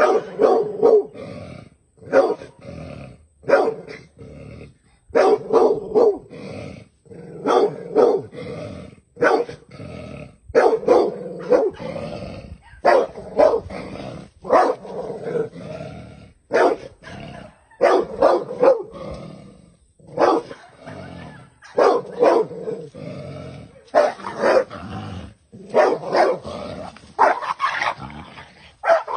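A dog barking and growling over and over in short, loud bursts as it attacks a snake.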